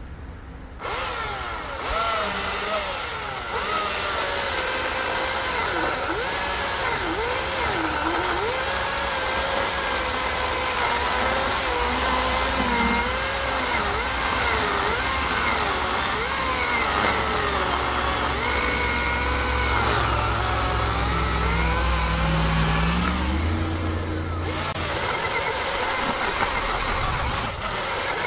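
Husqvarna Power Axe 350i battery chainsaw cutting through a log. Its motor whine wavers up and down in pitch as it loads and frees up in the wood, starting about a second in, with a short break about three-quarters of the way through before the cutting goes on.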